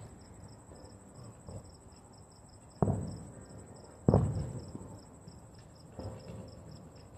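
Two firework bangs about a second and a half apart, each sharp at the start and trailing off in a rumbling echo, with a fainter bang near the end. Crickets chirp in a steady fast pulse behind them.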